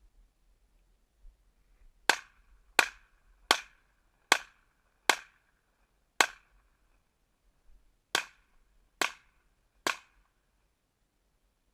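Pistol fired nine times: six shots about three-quarters of a second apart, a pause of nearly two seconds, then three more quick shots.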